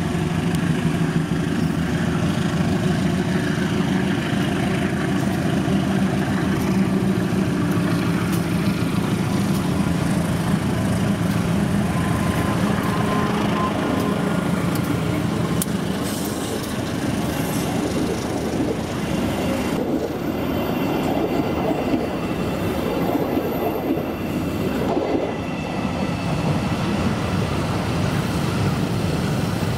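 Diesel-electric locomotive passing with a train of coal hopper wagons: its engine runs steadily at first, then the wagons' wheels clatter along the rails as they roll by.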